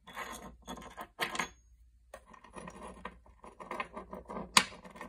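Small metal screws and parts being handled, with light clinks and rattles, and one sharp click about four and a half seconds in.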